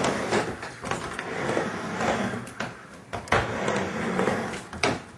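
Skateboard wheels rolling back and forth across a mini ramp, the rumble swelling and fading with each pass, with a few sharp knocks from the board striking the ramp.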